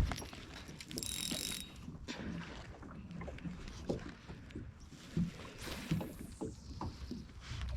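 Light knocks and handling noises of fishing gear in a small boat, with a brief high whirr about a second in and a falling whoosh around six seconds in.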